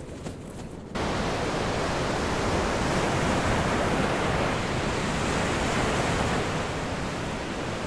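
Ocean surf breaking and washing over a sandy beach: a steady rush of waves that comes in abruptly about a second in.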